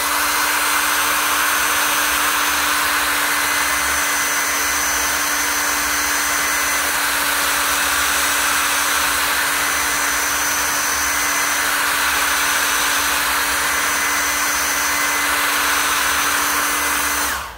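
Handheld hair dryer running at a steady speed: an even rush of air with a steady hum, switched off near the end.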